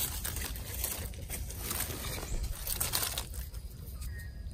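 Irregular crunching and rustling of dry leaf litter and twigs, a run of small crackles.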